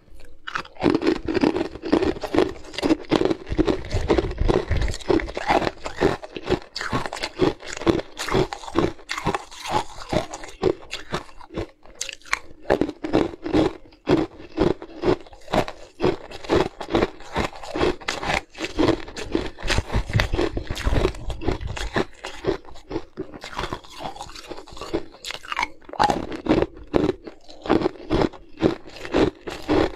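Shaped ice cubes being bitten and chewed up close to the microphone: a dense run of crisp crunches, several a second, with short pauses between mouthfuls.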